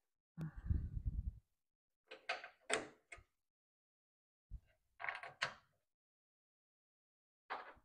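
Handling noise as small parts are fitted by hand: four short spells of clicks, knocks and rustles, the first with a dull knock under it about half a second in.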